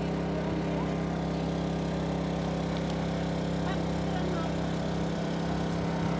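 Small portable inverter generator running at a steady speed, its engine holding one even pitch.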